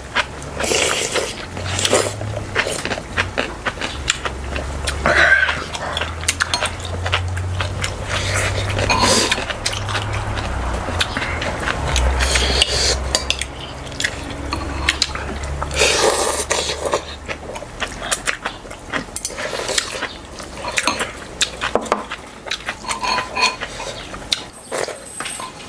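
Spoons and chopsticks clinking and scraping against bowls during a meal, in short irregular clicks, with a low steady hum underneath.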